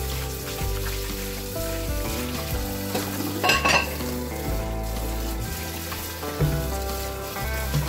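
Hand-washing of dishes: water running and splashing in a plastic basin as bowls are scrubbed and rinsed, with a short clatter of dishes knocking together about three and a half seconds in, under background music.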